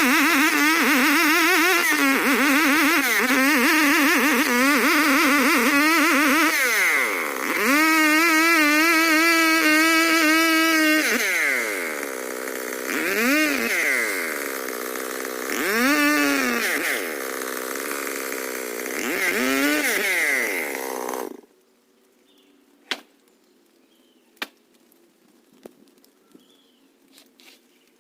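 Stihl 070 two-stroke chainsaw running hard, its pitch wavering under load, then held at steady high revs. It is revved up and down in a few blips, then shuts off abruptly about three-quarters of the way through, leaving only a few faint knocks.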